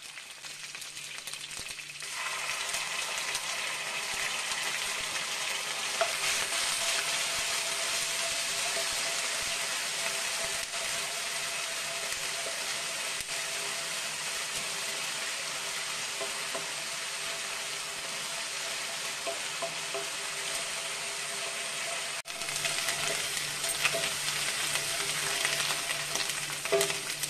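Chopped green chillies, curry leaves and ginger-garlic paste sizzling in sesame oil in a nonstick wok while being stirred with a wooden spatula. The steady sizzle gets louder about two seconds in, and short spatula knocks on the pan come through near the end.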